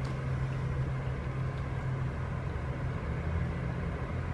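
Car engine idling: a steady low hum with light outdoor noise over it.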